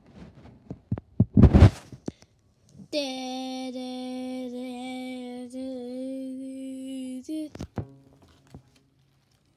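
Knocks and rubbing from a handheld camera being moved, loudest about a second and a half in. About three seconds in, a steady pitched tone starts and is held for about four seconds, then cuts off suddenly; two brief shorter tones follow it.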